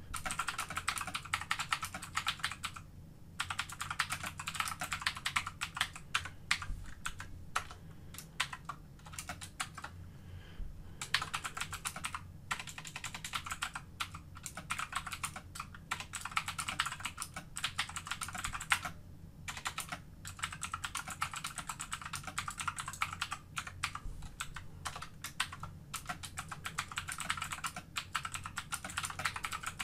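Computer keyboard typing in fast runs of keystrokes, with a few brief pauses.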